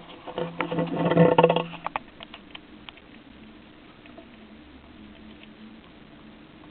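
Hamster crunching an insect: a dense run of crackling, clicking bites for about a second and a half, then a few scattered crunches.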